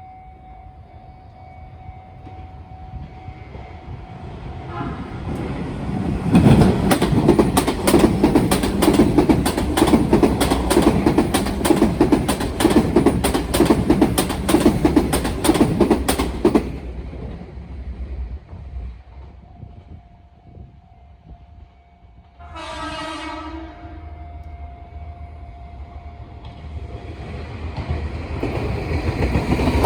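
Electric commuter train passing over turnout rail joints, a loud rapid clickety-clack of wheels striking the joints for about ten seconds. About 23 s in there is a short horn blast, and near the end another train approaches. A steady level-crossing warning tone sounds before and between the trains.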